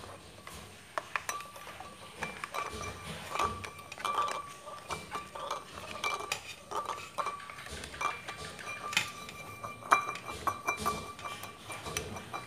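A plastic spoon clinking and scraping against a ceramic bowl as a boiled egg is rolled around in red food colouring, with irregular knocks and the bowl ringing briefly after the harder ones.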